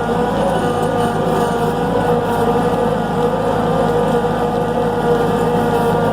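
Skid steer engine running steadily at a constant speed, its pitch wavering only slightly.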